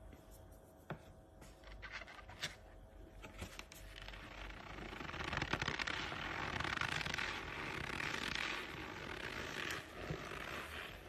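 Argo cornstarch, packed into balls, crushed by hand: a few light crackles and taps, then from about four seconds in a dense, continuous crunching of the compressed powder that runs for several seconds and eases near the end.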